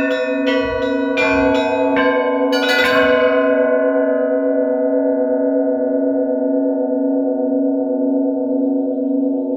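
Orthodox church bells ringing: a quick run of strikes over the first three seconds, then the bells left to ring on, the higher bells fading away while the big low bell's hum carries on.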